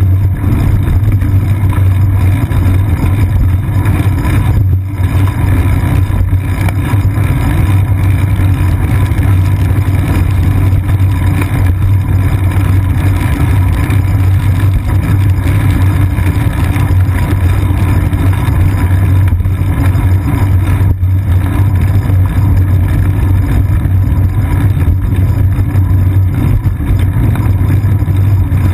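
Steady, loud low rumble of wind and road vibration picked up by a GoPro Hero 2 in its housing, mounted on a moving bicycle's seat post, riding over wet pavement.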